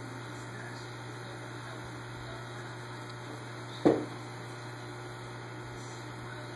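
Steady low electrical hum of running aquarium equipment, with one sharp knock about four seconds in.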